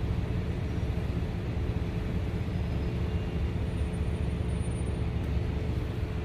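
Car engine running with a steady low hum, heard from inside the vehicle with the windows up.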